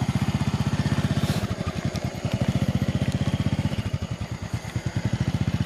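Honda Dream underbone motorcycle's single-cylinder four-stroke engine running steadily at low revs, an even fast beat of about a dozen firings a second.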